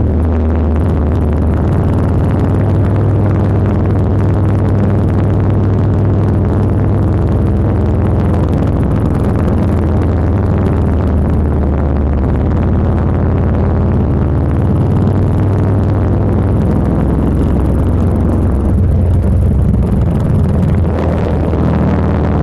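Motorcycle engine running steadily while riding at road speed, with wind rushing past; the engine note shifts a little a few times as the speed changes.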